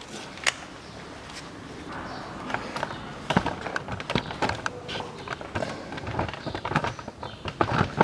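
Scattered clicks and light knocks of hands and tools working on engine parts: one sharp click about half a second in, then an irregular run of clicks and clatter from about two and a half seconds in.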